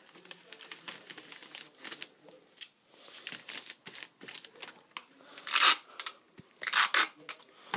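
Wrapping paper crinkling and rustling with small taps and clicks as a gift is wrapped, then two louder short rips of adhesive tape being pulled off the roll, about five and a half and seven seconds in.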